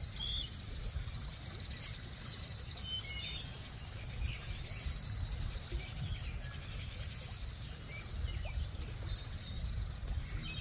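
Outdoor nature ambience: faint, scattered bird chirps over a low steady rumble, with a thin, steady high-pitched tone underneath.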